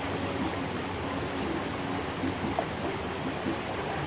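River water rushing steadily over a low weir, a continuous even wash.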